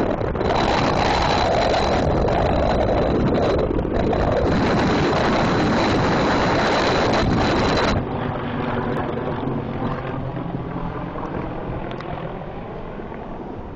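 A CH-53E Super Stallion helicopter and an MV-22 Osprey tiltrotor flying by low: heavy rotor and turbine noise with a steady high whine. About eight seconds in the sound drops suddenly and then fades as the aircraft move away.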